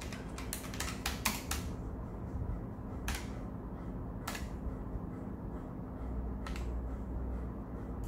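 Keystrokes on a Keychron K1 v4 low-profile mechanical keyboard with Gateron red switches. There is a quick run of key clicks in the first second and a half, then three single key presses spread over the rest.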